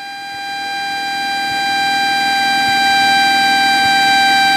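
Cessna 172 stall warning horn sounding as one steady, high reed tone, growing louder over the first few seconds and then holding. It signals that airspeed has decayed close to the stall, as at the top of a chandelle.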